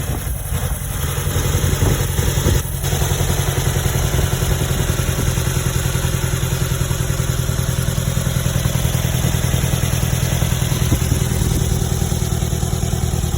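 2011 Nissan Altima 2.5 S's 2.5-litre four-cylinder engine idling with a pulsing beat, heard with the hood up, with brief dips near the start and about three seconds in. It is the misfire at idle that the owner is asking about.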